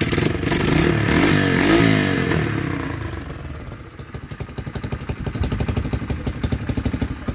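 Yamaha TT-R125's air-cooled four-stroke single-cylinder engine warming up: it runs at raised revs for the first couple of seconds, then the revs fall away and it settles into an even idle, ticking over smoothly as it nears operating temperature.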